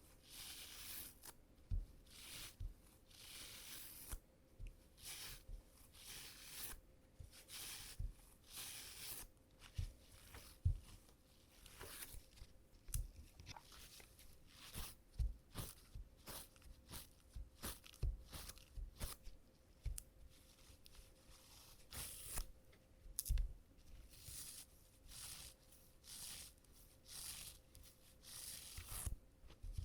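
Adhesive tape being pressed onto trouser fabric and peeled off again and again, pulling out embedded cat hair: short crackly peeling strokes about once a second, with soft bumps in between.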